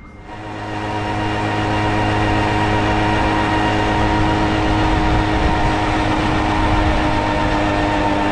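Tomos A3 moped's small two-stroke engine running at a steady cruising pitch while riding, with wind and road noise.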